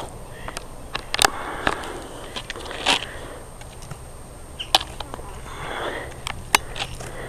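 Roller-ski poles planting on asphalt during double poling: sharp clicks of the pole tips striking the road, the strongest about every two seconds, with lighter ticks and a soft hiss between.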